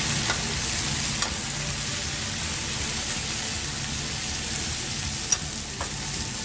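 Meat, onions and vegetables sizzling on a steel flat-top griddle as metal spatulas stir and toss them. A steady hiss with a few sharp clinks of spatula on steel, the loudest about five seconds in.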